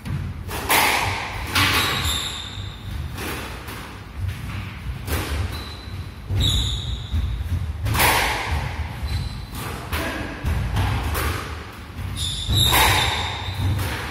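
Squash rally: a run of sharp thwacks from racket strikes and the ball hitting the court walls, echoing in the enclosed court. High squeaks of court shoes on the wooden floor come several times as the players lunge.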